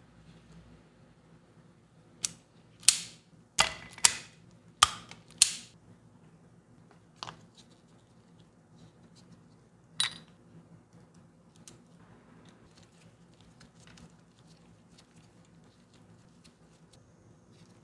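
Sharp knocks: six in quick succession starting about two seconds in, then a weaker one and a louder single one a few seconds later.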